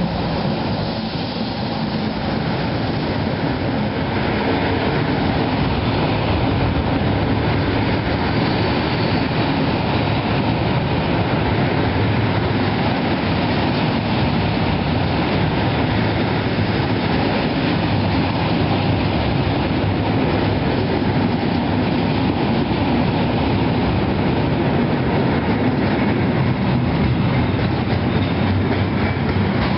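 A freight train hauled by an E186 electric locomotive rolls past at close range: first the locomotive, then a long string of hopper and container wagons. Their wheels make a steady rolling noise on the rails that grows louder about four seconds in and then holds.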